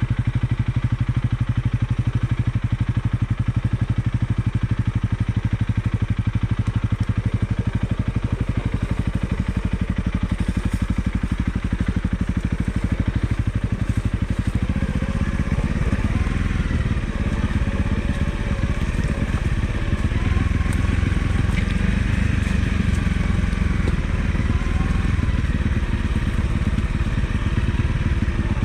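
Single-cylinder motorcycle engine running at low speed, its firing pulses steady. About halfway through the note changes and wavers up and down as the engine speed varies.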